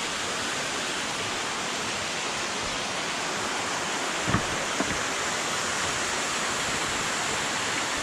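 Waterfall rushing steadily, an even wash of falling-water noise with a strong flow. Two short knocks stand out a little past the middle.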